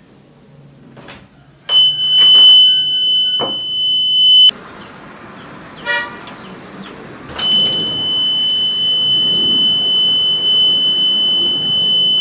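Homemade door alarm's buzzer sounding a loud, steady high-pitched tone twice: about two seconds in for roughly three seconds, then again from about seven seconds in until the end. A few sharp knocks come just before and during the first tone.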